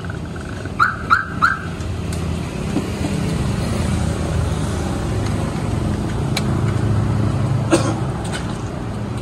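Steady low rumble of road traffic. Three short chirps come about a second in, and a few sharp clicks sound near the end.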